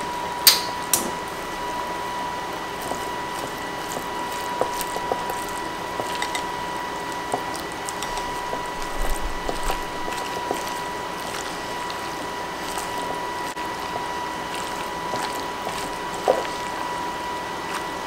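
Spoon stirring a thick, wet chicken, sour cream, green chili and cheese filling in a bowl: soft squelches and scattered scrapes and clicks, one sharper click about half a second in, over a steady high-pitched hum.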